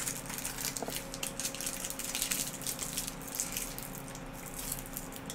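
Soft candy being chewed, with small wet clicks and smacks of the mouth, over a steady low hum in the room.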